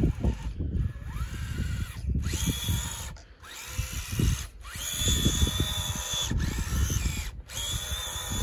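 Electric motor and drivetrain of a Traxxas TRX-4 RC crawler on Traxx snow tracks whining in several throttle bursts. Each burst rises in pitch and then holds, with short gaps between, as the crawler makes repeated attempts to climb a dense snow drift.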